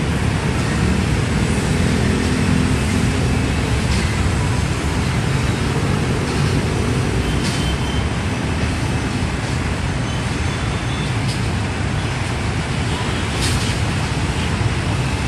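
Steady low rumble of city road traffic, with faint passing engine notes and a few faint ticks.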